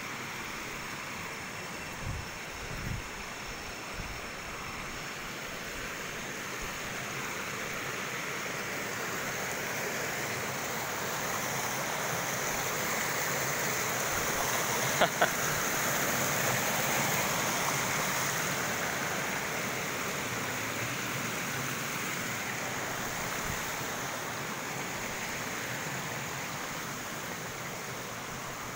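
Waterfall rushing steadily, swelling louder through the middle and easing a little toward the end. A few low bumps in the first few seconds and two sharp clicks about halfway through.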